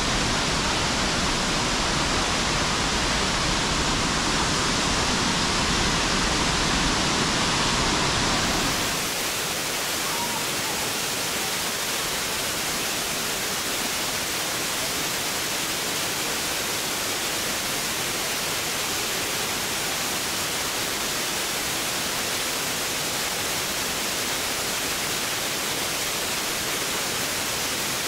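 Large waterfall's water rushing as a steady, even noise. About eight and a half seconds in it changes abruptly to a thinner, hissier rush with less low rumble.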